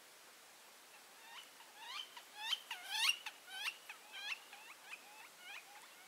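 Red-shafted northern flicker calling: a quick series of about fifteen short, upslurred squeaky notes, three or four a second, starting about a second in, loudest in the middle and fading toward the end.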